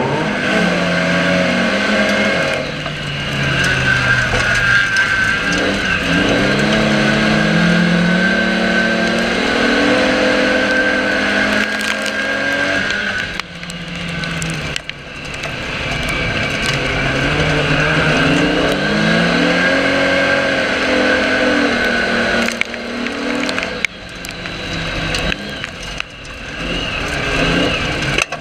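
Jaguar banger race car's engine heard from inside the stripped cabin, revving up and dropping back again and again as it races, with a few sharp knocks about halfway through and again near the end.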